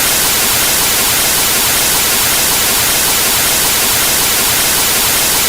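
Television static: the steady, loud hiss of an untuned TV showing snow, with no signal.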